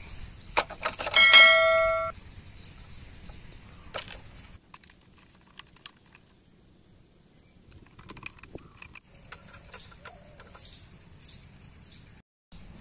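Mouse clicks followed by a short notification-bell ding about a second in, the sound effect of a subscribe-button overlay. Then faint clicks and rustles of a plastic bottle being fitted onto a motorcycle silencer. Near the end, a bird gives high chirps about twice a second.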